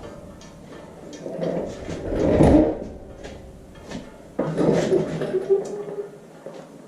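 Clunks and scraping as a Farmall Super MTA's rear wheel hub, hanging from a hoist, is worked off the axle. The loudest clunk comes about two and a half seconds in, and there is a brief squeak about five seconds in.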